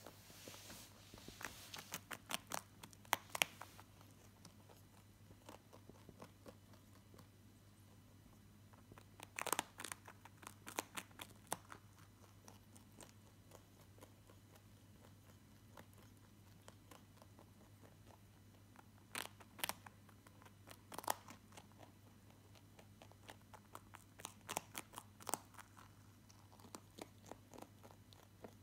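Lop-eared rabbit crunching and chewing a piece of food, in several short runs of rapid, crisp bites with pauses between them.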